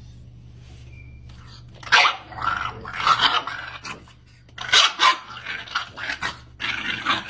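Small dog barking and growling in a run of short, loud, irregular bursts, starting about two seconds in.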